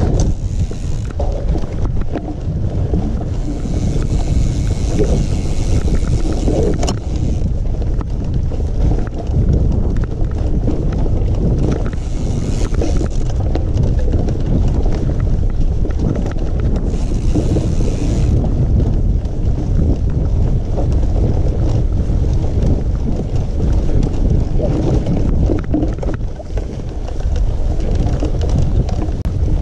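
Wind buffeting a camera microphone during a mountain-bike ride: a loud, steady rumble, with a few short stretches of hiss and the odd sharp click.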